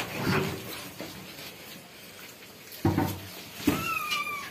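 Persian kitten giving one short, high mew that slides down in pitch near the end, with a brief lower sound a second before it.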